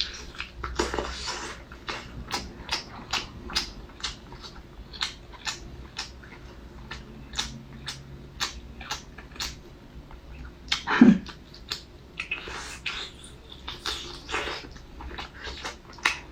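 Close-miked eating of spicy food: a steady run of sharp chewing clicks and wet mouth sounds, with a few longer noisy smacks. One short, louder voiced sound comes about eleven seconds in.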